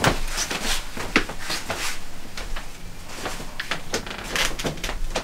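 A fine paintbrush flicking short strokes across watercolour paper, a rapid series of scratchy brushing sounds with a few light knocks of the brush and hand.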